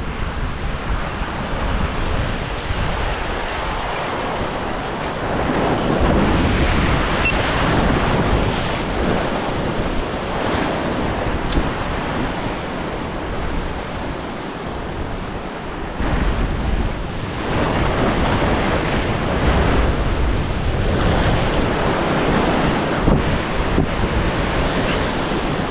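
Ocean surf breaking and washing over a volcanic rock ledge close by, surging every few seconds as each wave comes in and drains back.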